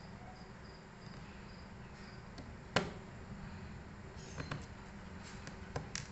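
A few sharp clicks and taps from laptop parts and tools being handled during disassembly: one loudest click about three seconds in, then a small cluster of lighter taps and two more clicks near the end, over a low steady hum. A faint cricket chirps at the start.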